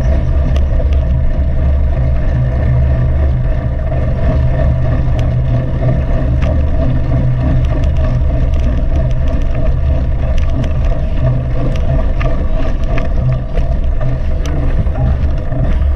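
Mountain bike ridden at race pace over rough ground: a steady rumble of wind and tyre noise on the camera's microphone, with frequent sharp rattling clicks from the bike.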